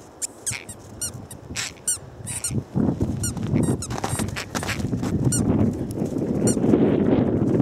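Squeaky toy squeaked again and again as a wire fox terrier carries and chews it in its mouth, giving many short, high squeaks. From about three seconds in, a low rush of wind noise on the microphone grows louder and drowns the squeaks.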